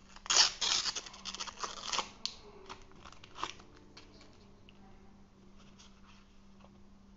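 The wrapper of a trading-card pack being torn open: a rapid run of loud crinkly rips in the first two seconds, then a few small rustles as the wrapper is handled and set down.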